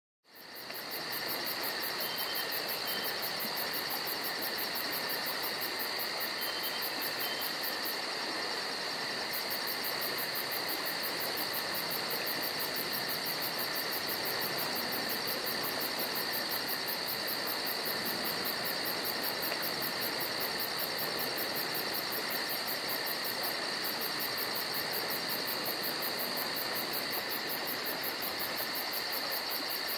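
Steady chorus of crickets trilling, over an even background hiss; it fades in at the start.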